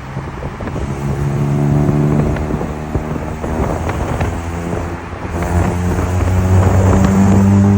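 Honda Civic FD engine and exhaust running, with a few sharp cracks in the middle, then a louder steady drone from about five seconds in.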